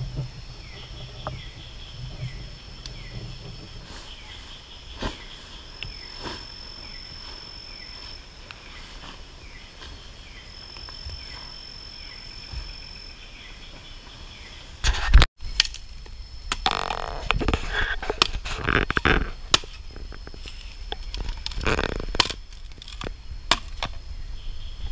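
Night-time insects in tropical forest: a steady high buzz and a short falling chirp repeating a little more than once a second. About halfway through comes one sudden loud thump. After it, the insects sit under irregular rustling and knocks from handling tent gear and moving through leaf litter.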